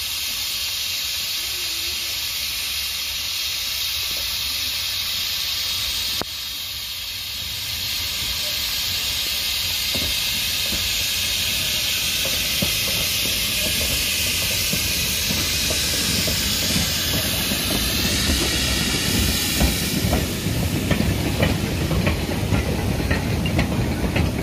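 Andrew Barclay steam tank locomotive hissing steadily as it moves slowly along the track. From about ten seconds in, irregular clanks and knocks of wheels and couplings grow, thickest near the end as its train of wooden coal wagons rolls past.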